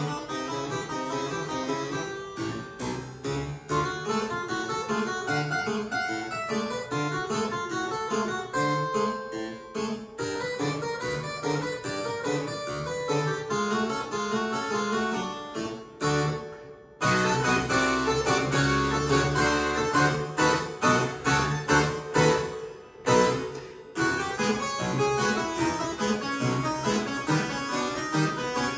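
Two-manual harpsichord playing a ragtime piece, dense bright plucked notes in both hands. The playing breaks off briefly about sixteen seconds in and again about twenty-three seconds in, and is louder after the first break.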